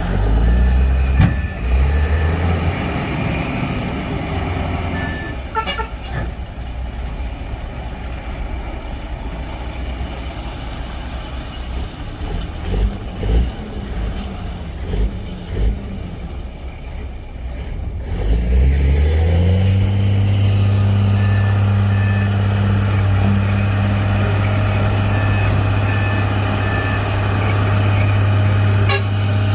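Heavy diesel engine running, which about two-thirds of the way through revs up and holds a loud, steady high drone, as under heavy load. A faint repeating beep sounds over it at the start and again near the end.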